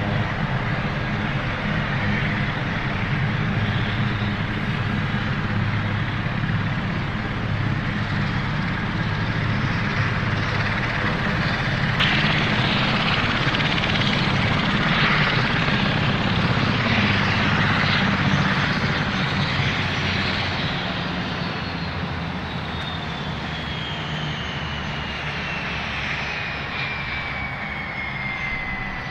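Aircraft turbine engine running on an airfield: a loud, steady rushing noise over a low rumble. Over the last several seconds a high whine falls steadily in pitch.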